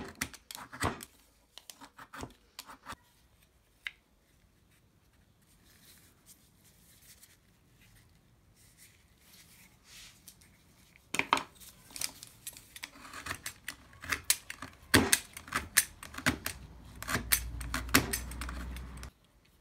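Snap-off utility knife blade shaving a small piece of wood, a quick run of short scraping cuts at the start, then a quiet stretch, then a longer run of cuts through the second half. A low rumble comes in under the cuts near the end.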